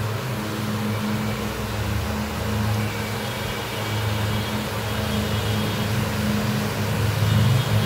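A steady low mechanical hum that swells and eases slightly.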